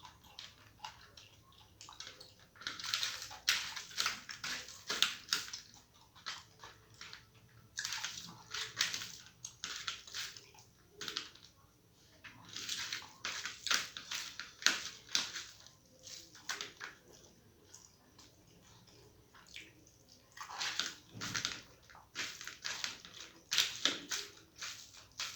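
Close eating sounds of rice with masoor dal and mashed potato: wet, smacking chewing and squelching that comes in bursts of a few seconds, with a longer lull about two-thirds of the way through.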